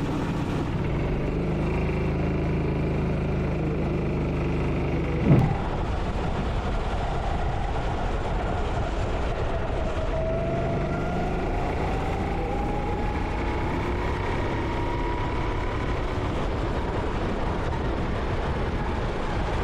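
Go-kart engine heard onboard on a wet track: it runs steadily for the first five seconds, a brief thump sounds a little after five seconds in, then the engine note climbs slowly as the kart picks up speed, over a steady rush of wind and spray noise.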